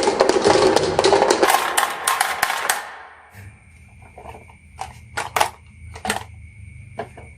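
Marbles rattling and clattering down a HABA marble run track. The clatter is dense and loud, thins out and stops about three seconds in, and is followed by scattered single clicks of marbles knocking on the track.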